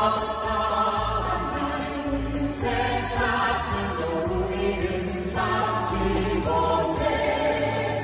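A group of singers singing together through microphones over a musical accompaniment with a steady bass. They hold long notes, and the chord changes about every two and a half seconds.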